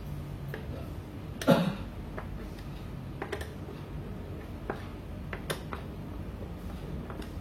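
Scattered light clicks and taps, with one louder knock about a second and a half in, from hands handling the mini PC's case and small hardware as it is closed up.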